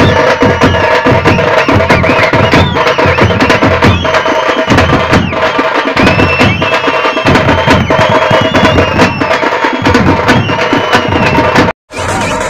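Tamate frame drums beaten fast with sticks in a dense, loud rhythm, with a crowd cheering over them. The sound breaks off suddenly for a moment near the end.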